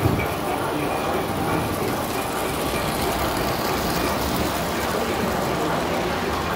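Vintage tinplate toy train running past on three-rail track: a steady rolling rumble and motor hum.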